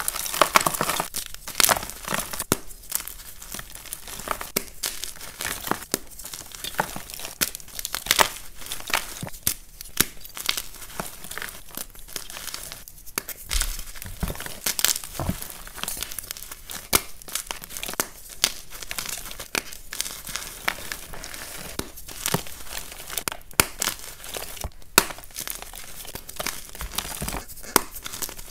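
Soft gym chalk blocks crushed and crumbled in bare hands: a dense run of small crunches and crackles as the chalk breaks apart into powder.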